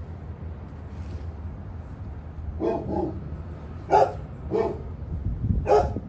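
A dog barking, about five short barks, singly or in pairs, starting about two and a half seconds in, over a steady low rumble.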